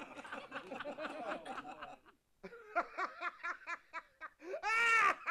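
Several men laughing and chuckling together. After a short pause one man laughs in a quick run of 'ha-ha' pulses that ends in a louder drawn-out laugh near the end.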